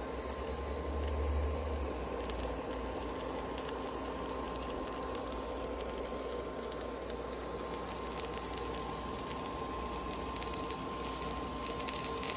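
A grilled sandwich frying in a skillet, the fat around it sizzling and crackling steadily.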